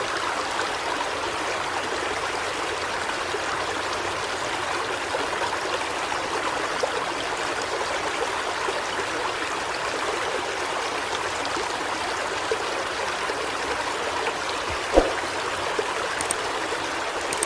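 Steady rushing of flowing floodwater, with one short knock near the end.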